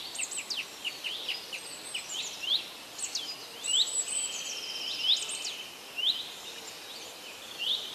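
Small birds chirping: many short, quick chirps a few times a second, with a couple of longer trills in the middle.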